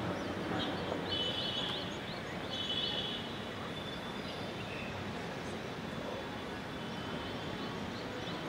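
Outdoor ambience: a steady hiss of background noise with birds chirping, in short clusters about a second in and again near the end.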